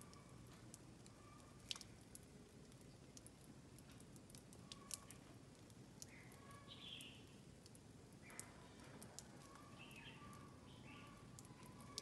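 Near silence: faint outdoor ambience with scattered soft clicks and a few faint short bird chirps.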